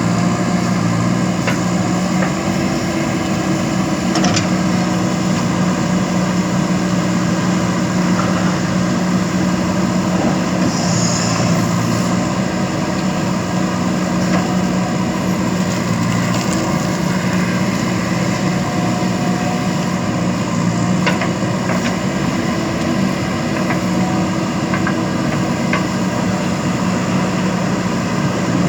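JCB backhoe loader's diesel engine running steadily, with a few short clicks scattered through.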